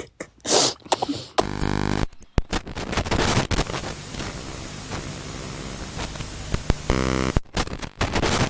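Added sound effects: a short low buzzing tone, then several seconds of loud hissing static, a second buzz, and a few sharp pops near the end.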